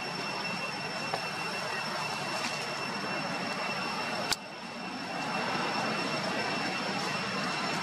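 Steady outdoor drone of an insect chorus with a thin high whine held throughout, and one sharp click about four seconds in, after which the sound dips briefly before returning.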